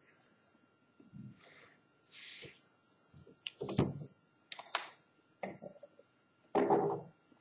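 Drawing instruments being handled on a drawing board: a few short rustles, then a run of clicks and knocks, the loudest near the end, as the ruler and pencil are put down and a compass is picked up.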